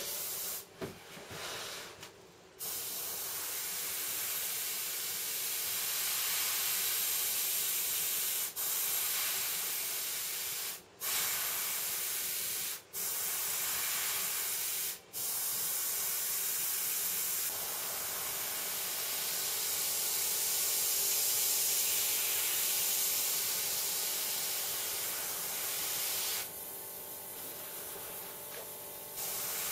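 Airbrush spraying paint: a steady hiss of air, stop-start in the first couple of seconds, then held with a few brief cut-offs as the trigger is let go, and quieter for a few seconds near the end.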